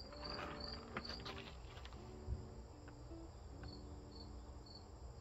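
A cricket chirping in a steady rhythm of short high chirps, about three a second, pausing for a couple of seconds midway. A few faint sharp clicks from bonsai pruning shears snipping juniper branches.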